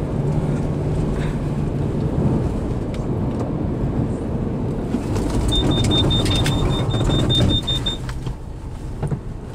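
Lexus GX470's Vehicle Skid Control buzzer beeping rapidly, about five short beeps a second for roughly two and a half seconds starting a little past the middle, over tyre and road noise. The buzzer signals the VSC braking individual wheels to stop a skid after a hard turn to the right. The road noise falls away near the end.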